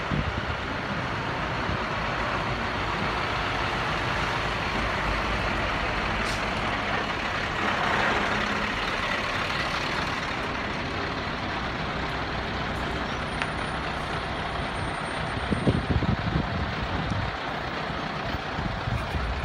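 Diesel engines of Scania tractor units running as they drive slowly past one after another, the sound swelling about eight seconds in as one passes close. From about fifteen seconds in the engine sound comes in louder, uneven surges as a Scania V8 tractor unit pulls past.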